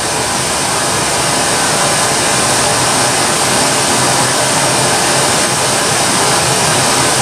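Pink noise test signal played through a loudspeaker for a real-time analyser measurement: a steady, even hiss with no change.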